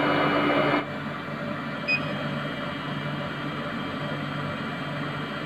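Steady hum of a benchtop biochemistry analyzer, louder with a low tone until it cuts off abruptly under a second in, then quieter. One short, high electronic beep from the analyzer about two seconds in.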